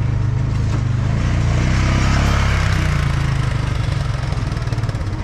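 Two-stroke racing kart engines idling with a fast, even pulsing, swelling a little louder about two seconds in before settling back.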